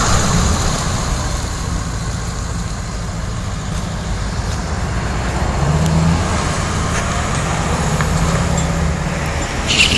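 Ford F-550 flatbed truck's engine running as the truck drives away, a low steady engine note that rises briefly about six seconds in. A short, sharper sound comes near the end.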